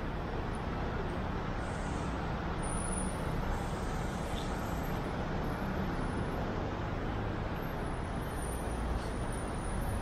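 Steady hum of city traffic, an even wash of noise with a low rumble and no distinct events.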